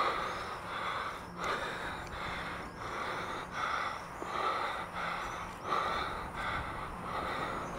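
A person breathing hard and fast, with short regular breaths about every two-thirds of a second: panting from the exertion of a long chimney-ladder climb.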